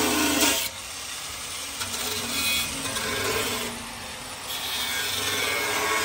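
Handheld angle grinder cutting sheet steel on a tractor's platform. It is loudest for the first moment, then drops to a quieter, steady grinding that carries on.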